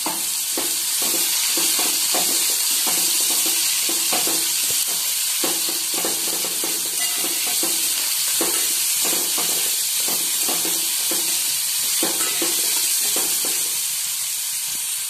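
Sliced onion and green capsicum sizzling in hot oil in a metal kadai over a raised gas flame, with a steady hiss. A flat spatula scrapes and knocks irregularly against the pan as the vegetables are stir-fried, the strokes thinning out near the end.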